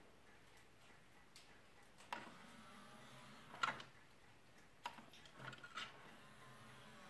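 A few faint, irregular clicks from a Sony CDP-X779ES CD player as its open/close button is pressed, the loudest about three and a half seconds in, over a faint low hum.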